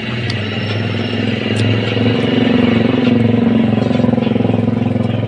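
Motorised coconut grinder running with a loud, steady, fast-buzzing motor drone that grows louder about two seconds in.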